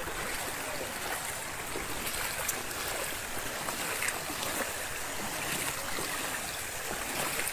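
Fast-flowing floodwater rushing with a steady, even noise.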